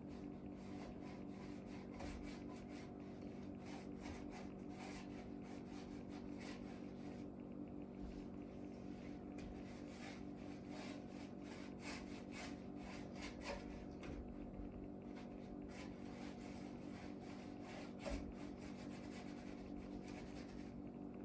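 Paintbrush stroking paint onto rough pallet-wood shelves: soft, irregular scrubbing strokes, a few a second.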